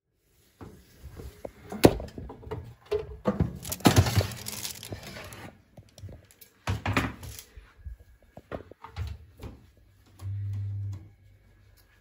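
Knocks and clatter of a metal baking tray being taken out of an oven, with the sharpest knock about two seconds in and a rushing scrape between about three and five seconds. A short low hum sounds near the end.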